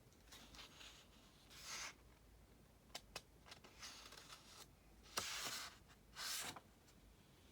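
Paper book pages being handled and turned: a few soft paper swishes and rustles, the loudest a little past the middle, with two small clicks about three seconds in.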